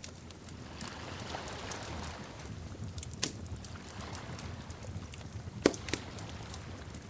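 Wood fire burning with a low rumble of flames and scattered crackles and pops; one sharp pop stands out about two thirds of the way through.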